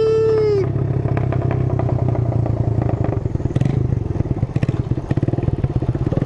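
Suzuki Intruder 125's single-cylinder engine running on the road, its exhaust popping and crackling in rapid strings, thickest around the middle. The pops come from the hot engine, which makes the exhaust crackle more. A brief falling whine sounds at the very start.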